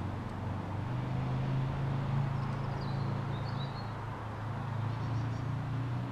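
A steady low engine drone, with a small bird chirping a few times about halfway through.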